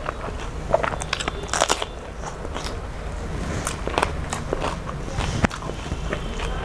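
A person chewing food close to the microphone, with irregular mouth clicks and crunches.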